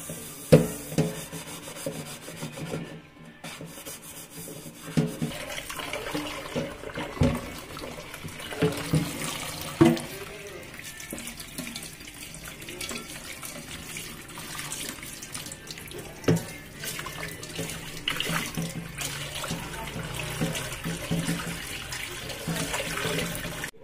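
Kitchen tap running and splashing into a frying pan in a stainless steel sink as the pan is scrubbed and rinsed, with several sharp knocks of the pan against the sink.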